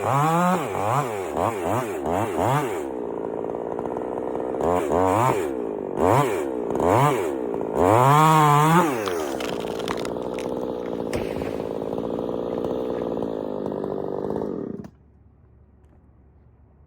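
Chainsaw engine revving up and down again and again as it cuts, then running steadily at a lower speed before it cuts off suddenly near the end.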